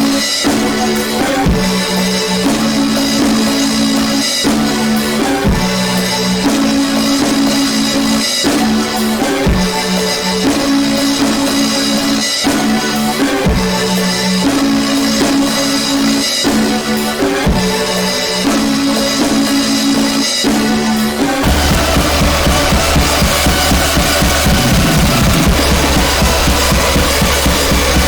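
Music: a drum kit plays over a riff that repeats about every four seconds. About 21 seconds in, the music switches to a denser, slightly louder passage with a held deep bass note under busy drumming.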